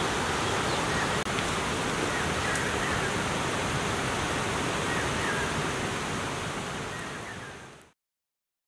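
Steady rushing outdoor noise like wind or running water, with a few faint short chirps. It fades out about seven seconds in and then goes silent.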